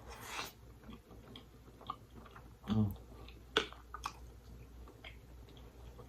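Close-miked chewing of creamy seafood pasta, with wet mouth smacks and clicks, a breathy sound at the start, and a brief low voice sound about three seconds in.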